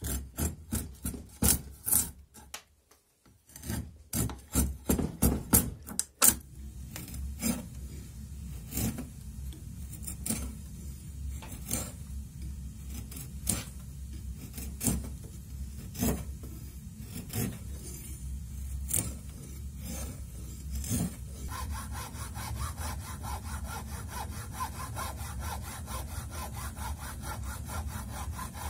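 A hand file scraping a wooden hammer handle clamped in a vise, about two strokes a second, for the first few seconds. Then a hacksaw cuts into the wood with steady back-and-forth strokes, switching to quicker, shorter strokes about twenty seconds in.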